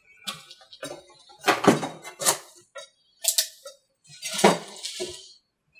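Fibreglass mold halves clacking and cracking as their flanges are worked apart by hand, as the newly laid male mold breaks free of the original female mold. The sound is a string of sharp cracks, with a longer crackle about four and a half seconds in.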